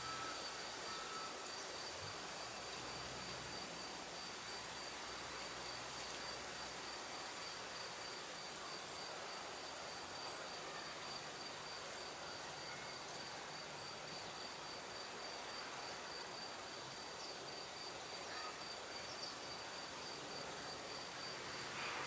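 An insect chirping in a steady, even run of high-pitched pulses over a constant outdoor background hiss.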